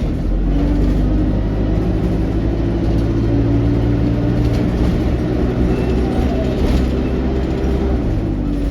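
ADL Enviro200 single-deck bus running under way, heard from on board: a steady engine drone with road noise, holding an even pitch.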